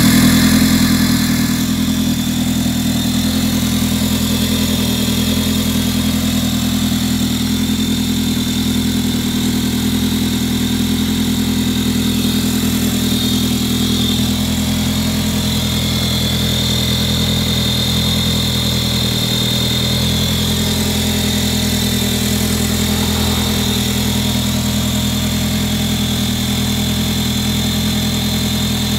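Audi A3 engine idling from cold, with a steady high-pitched screech from the engine running over the idle, growing stronger about halfway through.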